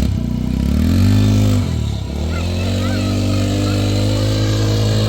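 Small petrol engine revving up, dropping back briefly about two seconds in, then running steadily at higher revs.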